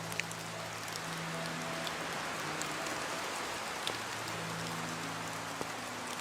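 Steady rain with scattered sharp drop ticks, over soft background music of long held low notes.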